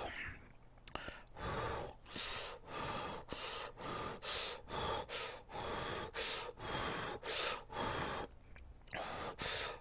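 A person slurping spicy instant jjamppong ramen noodles off chopsticks in a quick run of short, sucking slurps, about two a second, with a brief pause near the end.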